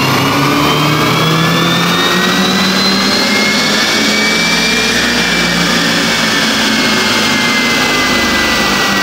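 Volkswagen Golf 7.5R's turbocharged 2.0-litre four-cylinder engine under full throttle on a roller dyno, revs climbing steadily for about five seconds and then easing off slowly. This is the stock, untuned baseline power run.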